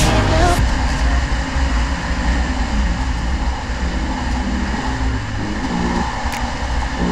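Snowmobile engine running steadily at trail speed, heard from on the moving sled with a continuous rushing noise over it.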